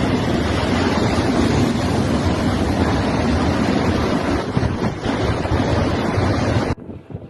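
Loud, steady rush of storm waves surging on the shore, with strong wind buffeting the microphone; it cuts off abruptly near the end, giving way to quieter wind noise.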